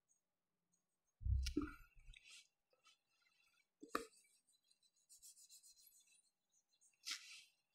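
Marker writing and a duster rubbing on a whiteboard, faint, with a dull thump about a second in and a sharp knock about four seconds in.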